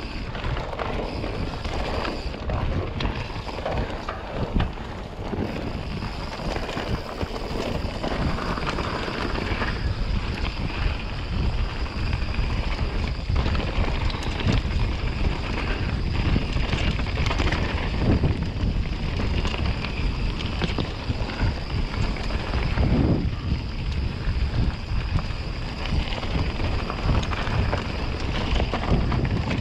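Wind buffeting the microphone over the rolling of a mountain bike's Schwalbe Hans Dampf tyres on a rocky dirt descent, with frequent rattles and knocks as the bike goes over rocks and roots.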